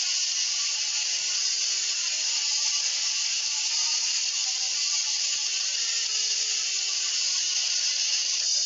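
Instrumental passage of an electronic pop song with no vocals: a steady, dense, gritty hiss-like noise texture with faint low synth notes underneath.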